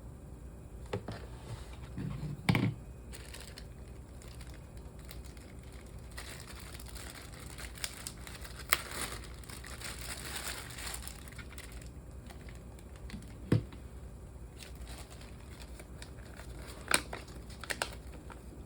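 Crinkling and rustling handling noise, thickest in the middle, with a few sharp knocks scattered through it.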